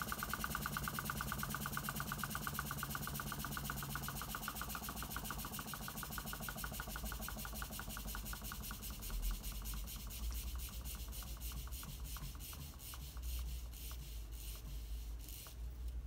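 Homemade Stirling engine and its small generator running down: the mechanism ticks in an even rhythm that slows steadily and stops about 15 seconds in as the engine coasts to a halt, its output voltage falling to zero.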